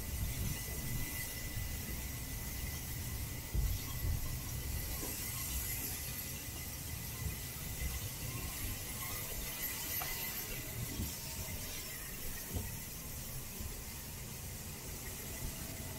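Bernina Express train running on a tight curve: a low wheel rumble with a thin, steady high squeal from the wheels on the rails. Two brief knocks come about four seconds in.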